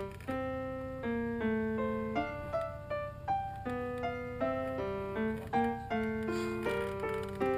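Piano music: a melody of single notes and chords, a new note struck every half second or so.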